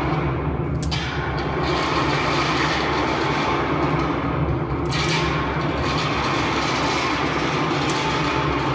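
Steady, loud rumble and hiss with a low hum underneath, machine-like, with brief brighter hissing flares about a second in and again about five seconds in.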